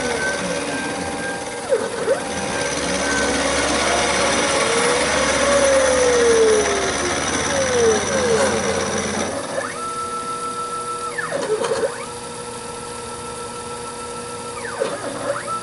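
Taig CNC micro mill profiling gray cast iron with a 3/16" carbide end mill: the spinning spindle and the cutter chewing the iron, with motor whines sliding up and down in pitch as the axes trace the radius. About nine seconds in, the cutting noise drops and steadier whines carry on.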